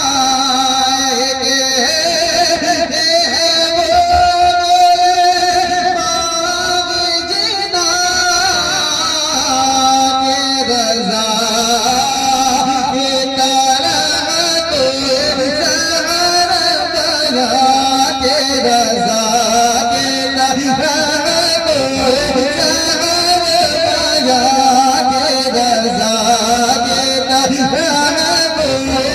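A male voice sings a long, wordless melody of naat recitation, drawn out and wavering up and down in pitch, with music behind it.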